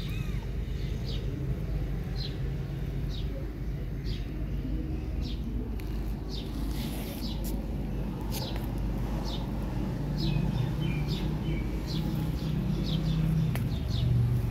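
Small birds chirping, short high chirps about two a second, over a steady low rumble.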